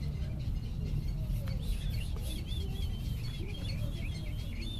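Small birds twittering in quick, repeated high chirps, starting about a second and a half in, over a steady low rumble.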